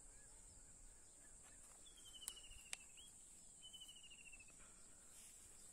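Near silence in a field: a faint, steady, high insect drone, with two short, slightly falling trills about two and four seconds in and two faint clicks in between.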